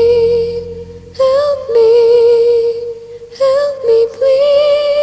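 Music: the song's closing melody, long held notes with vibrato in three phrases with short breaks, sung or played without words.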